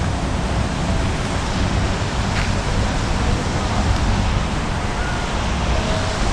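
Wind buffeting the camera microphone: a steady rushing noise with an uneven rumble underneath.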